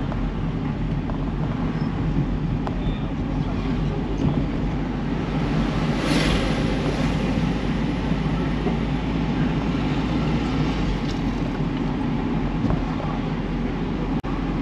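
Steady low rumble of a car being driven through city traffic, with engine and road noise. A louder rush of noise comes about six seconds in.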